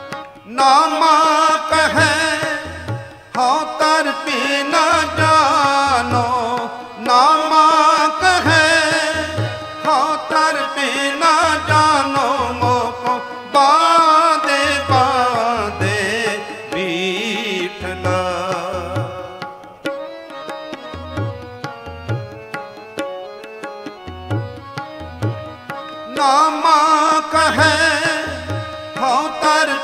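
Gurbani kirtan music: an ornamented, wavering melodic line over harmonium and a steady tabla beat. About two-thirds through the wavering line drops out, leaving held harmonium notes and tabla, before it returns near the end.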